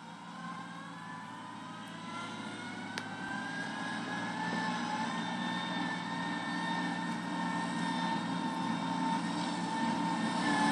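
Combine harvester's machinery coming up to speed: a whine that rises in pitch over the first few seconds and then holds steady, growing gradually louder.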